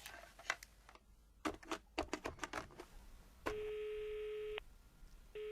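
Telephone call sound effect: a run of faint clicks as a number is dialled, then the steady ringing tone of the line, sounding twice for about a second each time while the caller waits for an answer.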